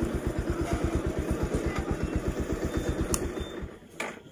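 Motorcycle engine idling, a steady rapid putting beat that fades out near the end, with a sharp click just before it dies away.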